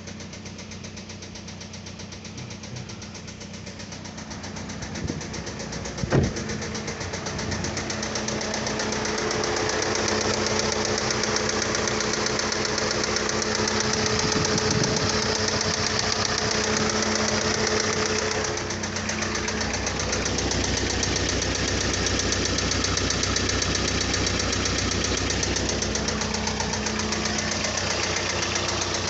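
2012 Kia Sorento engine running with a rapid knocking, a fault that sets no code on an OBD scanner. A sharp click comes about six seconds in, and the engine grows louder from about eight seconds on.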